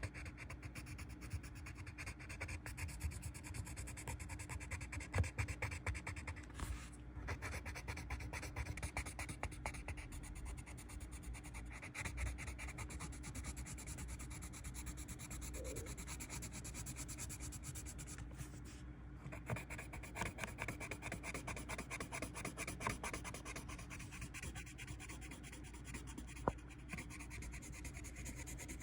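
Colored pencil scratching across paper in rapid shading strokes, with brief pauses about seven and nineteen seconds in.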